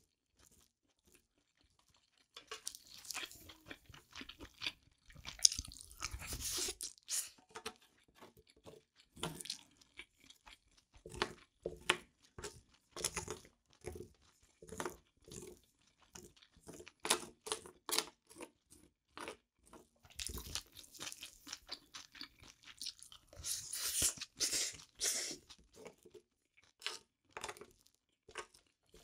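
Close-miked eating sounds: irregular wet chewing and crunching of spicy fried rice with chopped octopus and abalone, with a wooden spoon scooping from the metal pan, loudest in two stretches a few seconds in and about two thirds of the way through.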